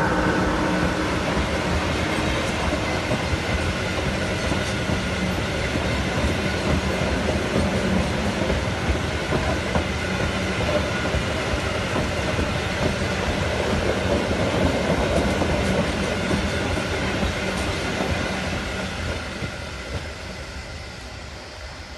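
Freight train of open-top wagons rolling past on the track with a steady rumble and rattle of wheels on rail. It fades over the last few seconds as the train draws away.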